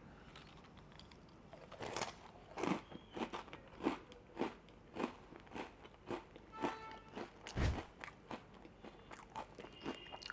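Crunchy Tangy Chili Fusion Cheetos being bitten and chewed with an open mouth: a run of sharp, dry crunches about twice a second.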